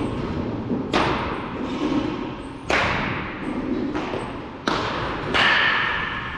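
Baseballs striking a bat or glove during practice: four sharp impacts a second or two apart, each with a short ringing tail.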